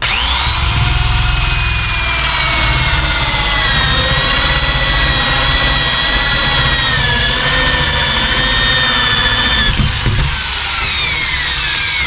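Electric drill with a hole saw boring through a wooden door, finishing the deadbolt hole from the second side. The motor starts suddenly with a high whine that sags a little under load, then is let off about ten seconds in and winds down with a falling whine.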